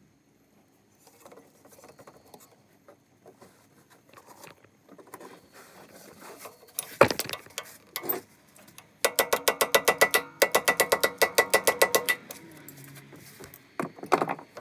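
Socket ratchet clicking fast and evenly, about ten clicks a second for some three seconds, as it works a 14 mm rear shock-mount bolt on an ATV. Before it there are quieter clicks of handling tools and a single sharp knock.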